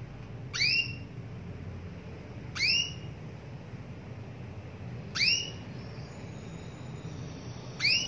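Female domestic canary calling, four short calls about every two and a half seconds, each rising quickly in pitch. This is the female's call to a male, used as a lure to set other canaries singing.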